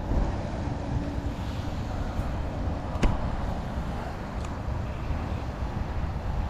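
Wind buffeting the microphone, a steady low rumble, with a single sharp click about three seconds in.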